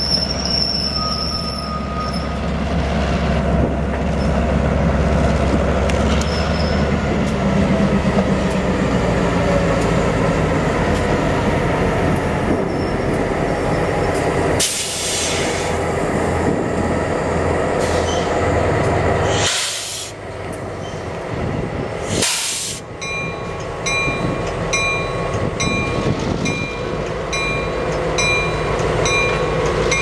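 Freight cars rolling slowly past with their wheels squealing on the rails, then Union Pacific GP38-2 switching locomotives going by with their EMD two-stroke V16 diesels running. In the last several seconds a regular ringing repeats over the rumble.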